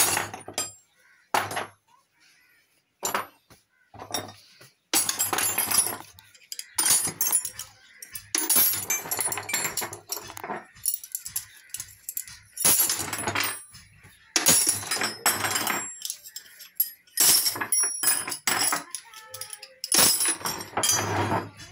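Steel spanners and sockets clinking and clattering against each other on a wooden bench as they are wiped with a cloth and set down, in irregular bursts with short pauses.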